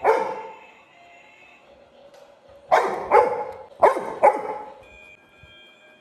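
Labrador retriever barking: one bark right at the start, then four sharp barks in two quick pairs about three and four seconds in.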